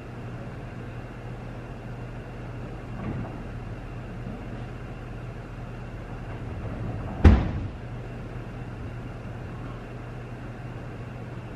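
Steady low hum of an empty room, broken about seven seconds in by a single sharp knock with a short ringing tail; a much fainter bump comes about three seconds in.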